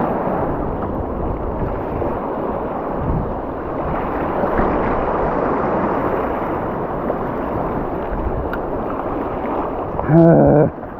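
Surf washing over a rocky reef in the shallows: a steady rush of moving water.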